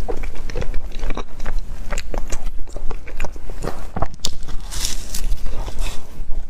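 Close-miked eating: irregular biting and chewing with wet mouth clicks and smacks.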